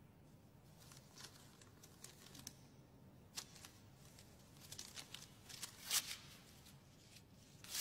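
Faint paper rustling and crackling as a letter is handled, in short irregular crackles with the loudest about six seconds in.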